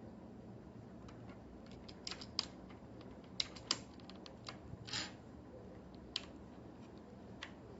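Isolated light clicks from a mechanical keyboard with linear switches, about seven keys pressed one at a time at irregular intervals, over a faint steady background hiss.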